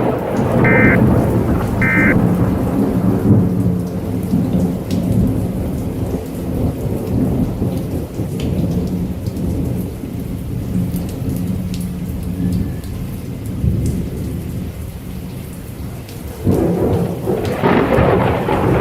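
Thunderstorm: steady rain with rolling thunder, which suddenly grows louder about 16 seconds in. In the first two seconds, two short buzzy data-tone bursts of an emergency alert's end-of-message signal sound over the storm.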